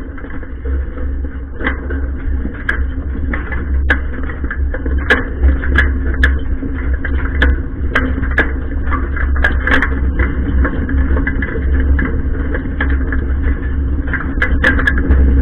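Tractor engine running steadily with a deep drone, overlaid by frequent irregular clicks and rattles of loose metal.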